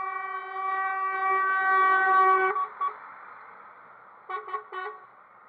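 A truck horn sounds one long steady blast that cuts off about two and a half seconds in, then gives three short toots near the end.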